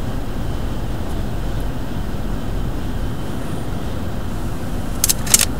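Steady road and engine rumble heard inside the cabin of a moving vehicle, with a few short clicks near the end.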